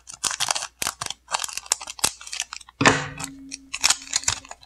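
Scissors snipping across the top of a foil booster pack, a quick run of short crisp cuts and crinkles, followed about three seconds in by a louder rustle of the foil wrapper as the pack is opened.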